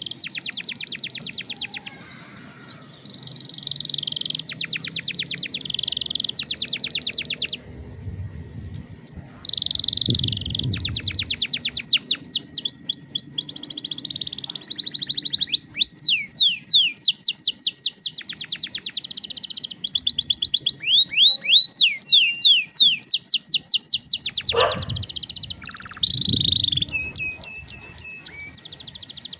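Domestic canary song: long phrases of very fast, high trills and rolls alternating with runs of quick sweeping notes, separated by short breaks. A brief low thud comes through about three-quarters of the way in.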